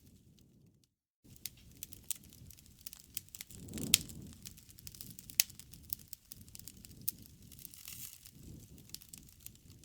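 Wood campfire crackling and popping over a low rush of flames. The sound drops out briefly about a second in, and there is a sharp loud pop about four seconds in, with another a little later.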